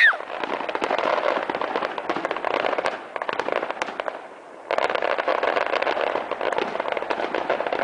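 Fireworks crackling, a dense rapid patter of small sharp pops, dropping away for a moment past the halfway mark and then starting again abruptly.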